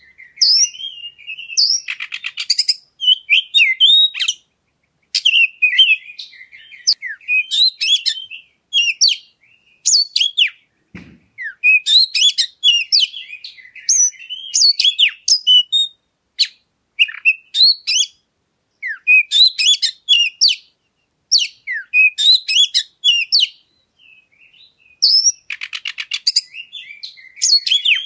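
Oriental magpie-robin (kacer) singing a lure song: varied high whistled phrases separated by short pauses, with fast buzzy rattling notes about two seconds in and again near the end.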